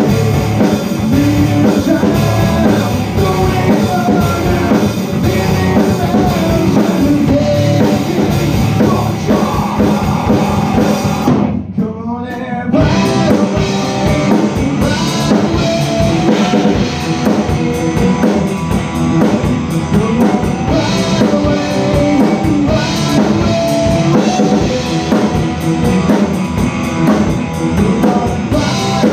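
Rock band playing live: distorted electric guitars over a Tama drum kit. About twelve seconds in, the band breaks off for about a second, leaving only a low ring, then the full band comes back in.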